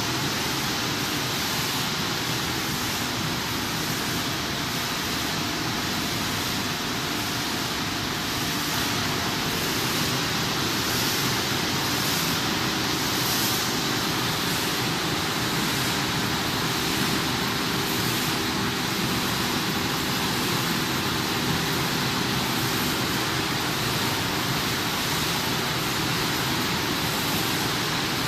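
Corn flakes processing machinery running: a steady, dense hiss of motors and air handling with a faint steady high whine, and a soft regular pulse in the hiss about once a second.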